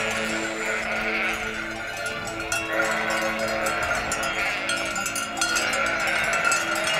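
A large herd of goats on the move, many bleating over one another in calls of about a second each, with the herd's bells clanking throughout.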